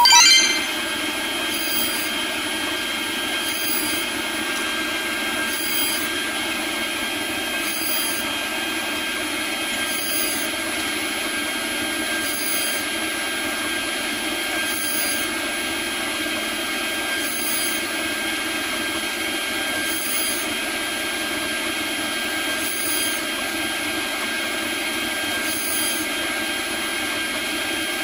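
CNC router spindle running at speed with a steady high whine while a small end mill cuts Delrin. A brief loud squeal comes right at the start, and the cutting noise changes slightly every two to three seconds.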